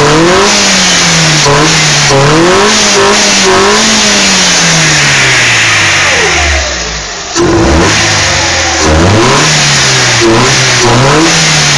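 Chevrolet Celta's 1.0 VHC four-cylinder engine, fitted with a sport air filter, revved in quick repeated blips, its pitch rising and falling about once a second. About halfway through the revs sink and the sound drops away briefly, then it comes back suddenly and the blipping resumes.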